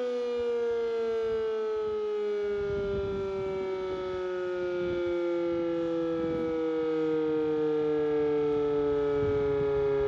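Sentry 10V outdoor warning siren coasting down at the end of an alert, its single wailing tone sliding slowly and steadily lower.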